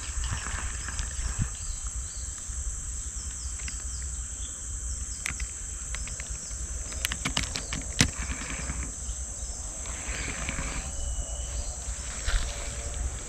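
A steady, high drone of insects from the surrounding vegetation, over a low rumble. A few sharp clicks of handling come through, the loudest about eight seconds in.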